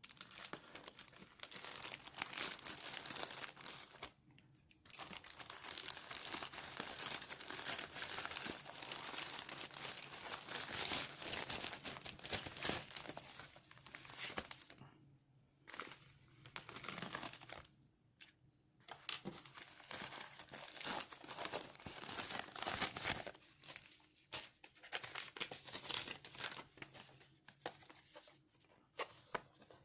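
Packaging being handled and unwrapped by hand: bursts of crinkling and rustling with some tearing, stopping briefly a few times.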